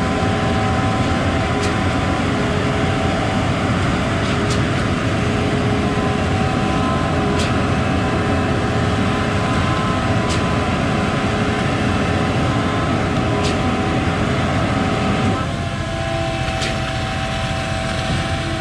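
Concrete boom pump truck running under load: a steady engine drone with a sharp clack about every three seconds as the pump strokes. About three-quarters of the way through, the sound drops a little and its note changes.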